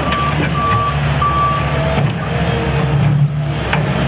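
New Holland LS170 skid steer loader's diesel engine running steadily under load as it reverses up a dirt trench, with a backup alarm giving three high beeps in the first two seconds.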